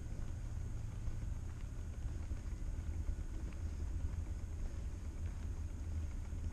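Low, fluctuating rumble of wind buffeting the microphone of a camera on a moving bicycle, mixed with the roll of the ride along a paved path.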